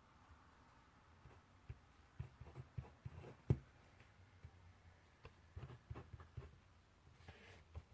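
Faint handwriting sounds at a desk: scattered light taps and clicks of a pen on paper and desktop, one louder knock about three and a half seconds in, and a short rustle near the end.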